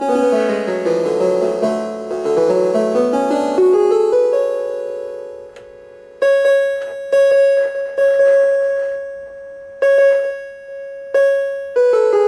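Yamaha CP11 vintage electronic keyboard played with its tremolo on: a run of notes down and back up, then after a pause one high note struck several times.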